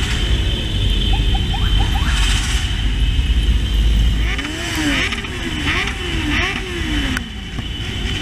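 Motorcycle engines in a large riding pack, revved over and over. About halfway through comes a quick run of rev blips, each rising and falling, over a steady low rumble.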